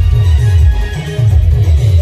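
Loud timli band music from a large outdoor speaker system: a deep bass line of short notes, about five a second, under a held keyboard melody.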